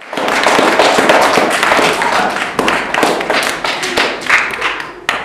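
Audience applauding: dense clapping that thins into a few separate claps near the end.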